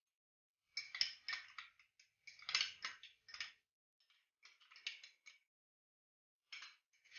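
Stirring and scraping inside a pressure cooker: a series of short, irregular rasping strokes with small clicks, pausing briefly about two-thirds of the way through.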